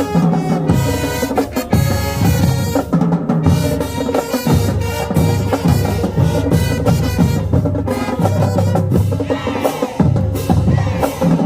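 Marching band playing: the drumline's bass and snare drums keep up a dense rhythm under sustained brass chords.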